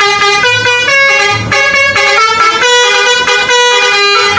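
Multi-tone 'telolet' bus horn playing a melody, its pitch stepping from note to note in a quick run of loud notes.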